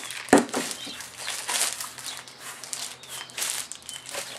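Plastic bag and shrink wrap crinkling and rustling as they are handled and pulled off a new shovel, with irregular scrunches. A sharp knock comes about a third of a second in.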